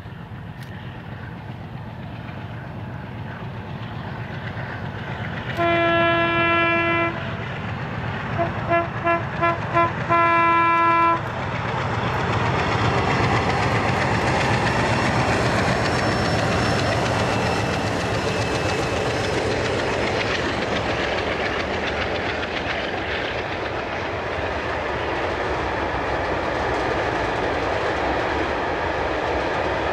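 Two MLW diesel locomotives heading a freight train sound their horn on approach: one long blast, five short toots, then another long blast. The locomotives' engines then pass close by, followed by the freight wagons rolling past on the rails.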